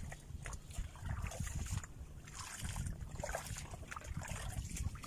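Wind buffeting the microphone as a steady low rumble, with water splashing and lapping among shoreline rocks.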